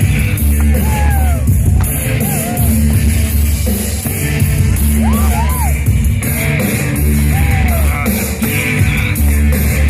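Loud rock-style show soundtrack played over loudspeakers, with a heavy beat and rising and falling melodic lines.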